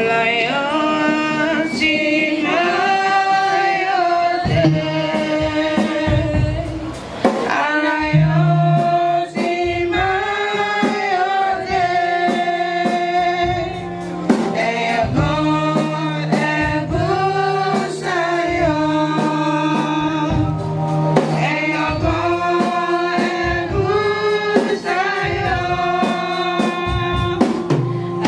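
A group of men and women singing a gospel song together in Yoruba, with held notes over a steady percussive beat.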